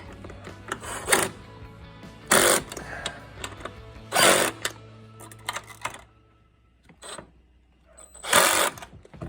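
Cordless power driver spinning in four short bursts, running the bracket bolts in.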